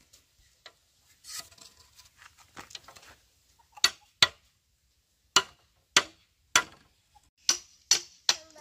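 Sharp knocks or taps, a few faint ones and then about eight loud ones at uneven gaps of roughly half a second to a second, starting about four seconds in.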